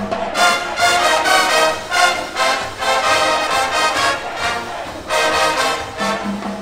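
Marching band playing: brass carries a melody in short rhythmic phrases, with a low held note at the start and again near the end.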